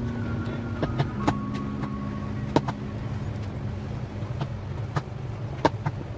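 Kitchen work sounds: a steady low hum with scattered sharp clinks and taps of utensils, the loudest a little over halfway in and again near the end.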